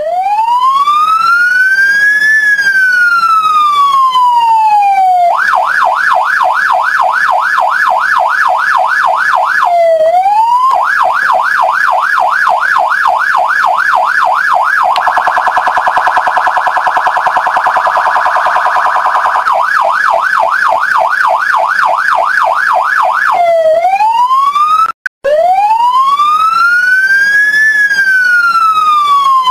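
Electronic police siren running loud through its tones: a slow rising and falling wail, then a fast yelp of about three to four sweeps a second, a very rapid warble in the middle, the yelp again, and the slow wail once more near the end. It cuts out briefly once, a few seconds before the end.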